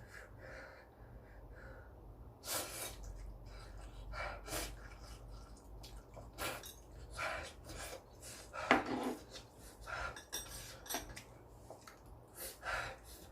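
Utensils clinking and scraping against a dish during a meal of noodles, in short irregular strokes with eating noises between them.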